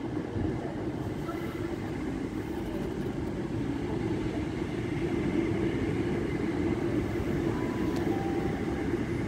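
Passenger train running through the station, a steady rumble of wheels on rail that grows slowly a little louder.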